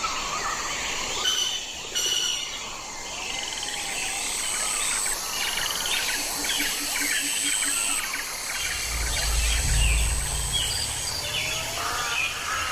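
Many wild birds chirping and calling at once, with a steady high insect-like whine on and off. A low rumble comes in briefly about two-thirds of the way through.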